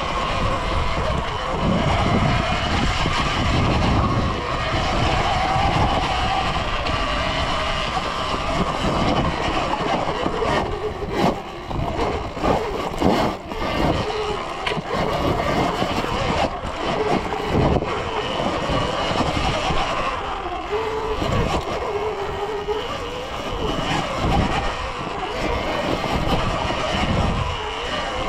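Surron Ultra Bee electric dirt bike under way on a trail: the electric motor's whine rises and falls with the throttle over a steady rumble of the ride, easing off briefly a few times around the middle.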